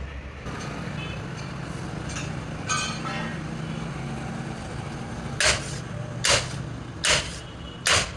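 Four loud, evenly spaced hammer blows on metal, about one every 0.8 seconds and each ringing briefly, over a steady low hum; a few light metallic clinks come a little before them.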